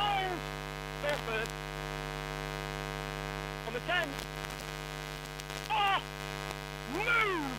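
Steady electrical hum with many overtones throughout. Short distant cries break in every second or two.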